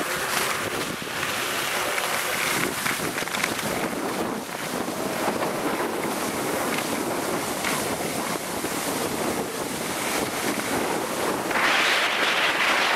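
Wind buffeting the microphone over skis hissing and scraping on groomed snow, growing louder about a second and a half before the end.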